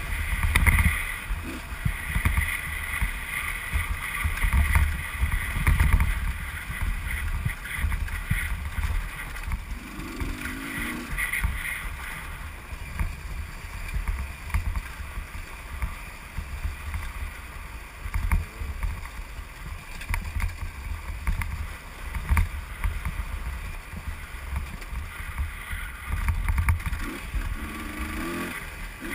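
Husqvarna WRE125 two-stroke enduro motorcycle engine running hard with a steady high whine, heard from a helmet camera with heavy wind buffeting on the microphone.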